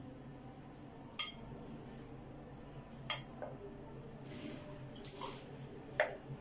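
A small steel ladle clinking against a glass bowl and drinking glass: three sharp clinks about a second, three seconds and six seconds in, the last the loudest, with a soft pour of pomegranate juice between the second and third.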